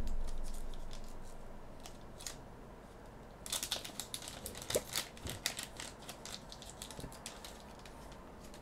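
A low thump at the very start, then, about three and a half seconds in, a run of crackling and clicking from a foil trading-card booster pack being torn open and its cards handled.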